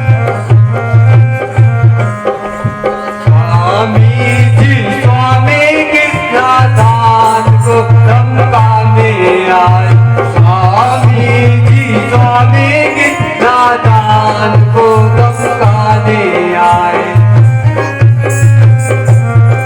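Indian folk-style instrumental music: tabla-type hand drumming under a wavering, gliding melody line, with a deep bass note that breaks off every second or two.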